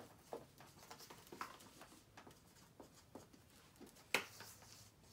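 Dry-erase marker writing on a small whiteboard: faint scattered scratches and taps, with one sharp knock about four seconds in.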